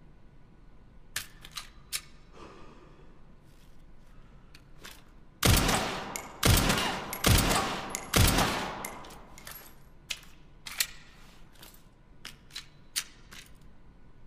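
SIG-Sauer P320 pistol fired four times, about a second apart, each shot ringing off with a reverberant tail. Sharp small clicks come before and after the shots.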